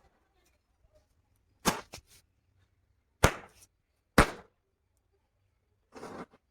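Baan rocket fireworks going off in a fire: three sharp cracks, each trailing a short hiss, and a rougher, longer hiss of a rocket firing about six seconds in.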